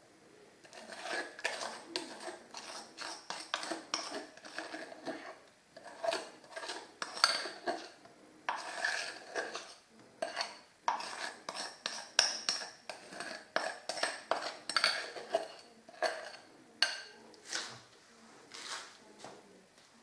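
A metal spoon repeatedly scraping and clinking against a glass mixing bowl while scooping thick whipped cream out into a steel bowl: many short, irregular clinks and scrapes.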